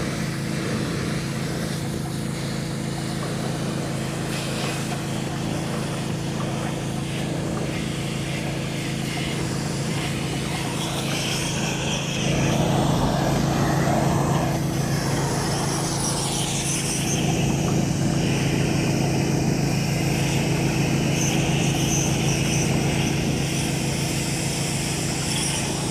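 Pressure washer engine running steadily under the hiss of water spraying from the wand onto the metal roof. The spray gets louder about twelve seconds in.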